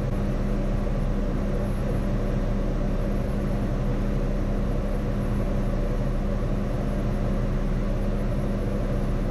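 Diesel engine of a 20-tonne rough-terrain crane running steadily, a constant low drone heard from inside the operator's cab.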